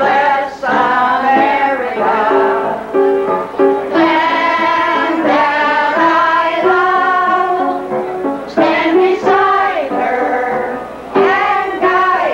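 An amateur kitchen band playing a tune: a sung or voice-like melody line over steady held accompanying notes, running in phrases with short breaks between them.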